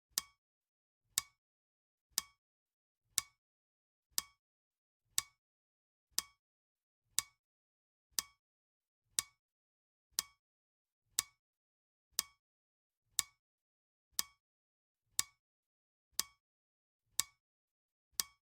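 Clock ticking, one sharp, even tick each second, every tick alike, counting down a timer.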